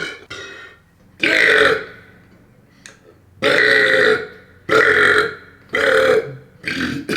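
A man burping five times in a row, each burp short and separate, in a carpeted room full of furniture that gives them little echo.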